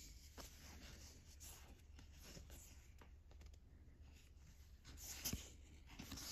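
Faint rustling and soft clicks of Pokémon trading cards being slid and handled, with a slightly louder tap about five seconds in.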